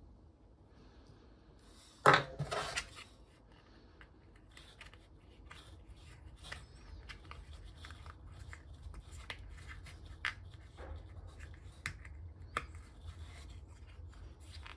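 Close handling of small plastic parts: one short loud rustle about two seconds in, then a steady run of light clicks and scratches as a lens is pressed and fitted into a resin-printed plastic glasses frame.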